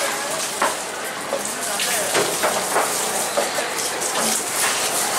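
A large knife scraping and cutting along the body of a bluefin trevally on a wooden board, in a quick, uneven series of rasping strokes.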